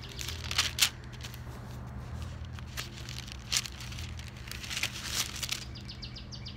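Paper pages of a Bible being leafed through by hand, several short rustling page turns a second or more apart.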